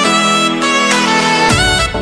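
Background music: a melodic line over sustained notes, with a deep bass coming in about one and a half seconds in.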